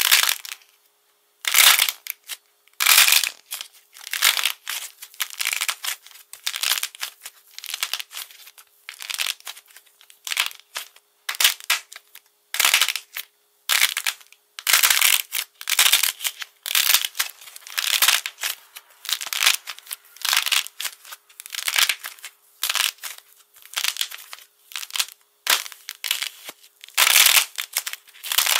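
Dried, brittle coating on soft clay bars cracking and crinkling as fingers squeeze, break and peel it away. The crisp crackles come in quick irregular bursts, one after another.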